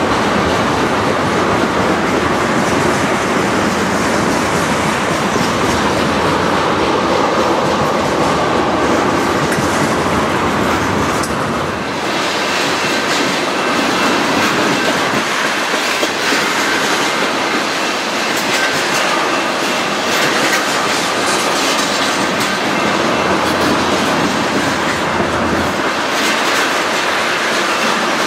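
Freight train of loaded railroad tank cars rolling steadily past at close range, steel wheels running over the rails in a continuous clatter. The deep rumble drops away about twelve seconds in, leaving the higher wheel-on-rail noise.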